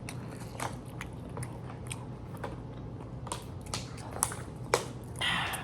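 A person chewing and biting food close to the microphone: wet mouth clicks and crunches at an uneven pace, with a brief rustle near the end.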